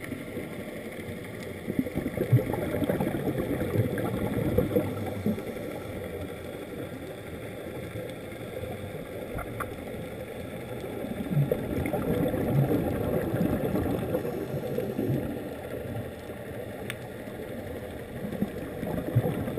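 Scuba divers' regulator exhalations heard underwater: muffled bubbling and gurgling that swells, louder about two to five seconds in and again from about eleven to fourteen seconds.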